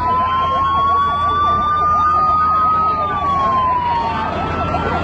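Two emergency vehicle sirens sounding at once: one a slow wail that rises and falls, the other a fast yelp of about four sweeps a second, with a steady low rumble underneath.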